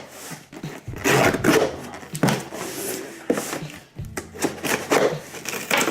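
Packaging being pulled open and handled by hand: irregular bursts of rubbing, scraping and rustling, several in quick succession.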